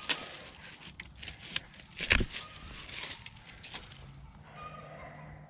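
Dry twigs and leaf litter crackling and snapping in forest undergrowth as brush is handled and trampled, a few sharp cracks with the loudest about two seconds in.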